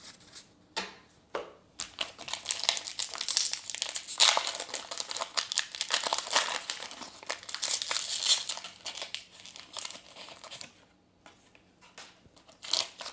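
Foil wrapper of a Pokémon TCG booster pack crinkling and tearing as it is opened, a dense crackle from about two seconds in that eases off near the end.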